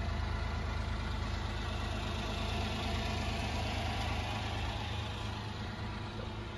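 1996 Honda Acty truck's small three-cylinder engine idling steadily, a little fainter near the end.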